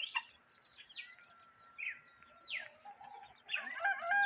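Farmyard birds calling at dawn: scattered short chirps and a held whistle, then near the end a rooster begins to crow.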